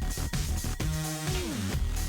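Electronic dance music with a steady beat and synth notes, one of them sliding down in pitch about one and a half seconds in.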